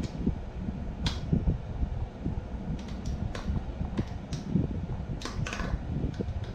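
AnimalHouseFit MonkeyFeet foot strap and latch being handled and fastened around a bare foot: low rubbing and bumping, with about eight short sharp clicks scattered through.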